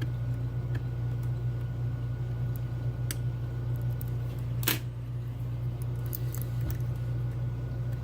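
Faint clicks and small scrapes of lock-picking tools working the pins of a Medeco Keymark lock, one sharper click about halfway through, over a steady low hum.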